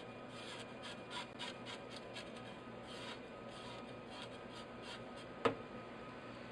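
A knife blade scraping the scales off a fresh fish held over a steel sink, in quick repeated strokes. There is one sharp knock about five and a half seconds in.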